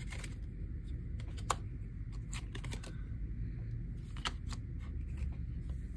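Photocards being handled and slid between the fingers: scattered light clicks and taps of card on card, the sharpest about a second and a half in.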